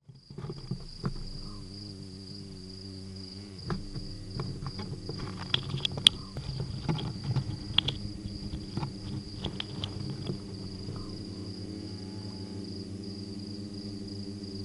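A dormouse scrabbling over the microphone housing, its claws making a run of scratches and sharp clicks from about a second in until about ten seconds in. Under it run a steady high insect trill and a low steady hum.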